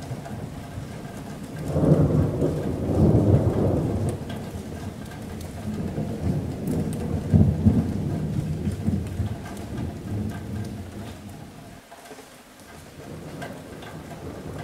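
Steady rain drumming on a metal roof, with a low rolling thunder rumble that swells about two seconds in, rolls on in a second wave a few seconds later, then dies away, leaving the rain alone near the end.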